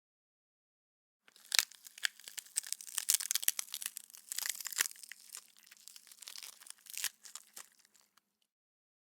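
Bone-breaking foley sound effect: dense wet crunching and crackling with sharp snaps mixed in, starting about a second in and stopping about a second before the end. The sharpest snaps come near the start and again about two-thirds of the way through.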